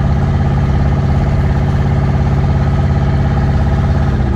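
Twin-turbo Ford F-100 pickup's engine running steadily under way, heard from inside the cab; its note dips slightly in pitch near the end.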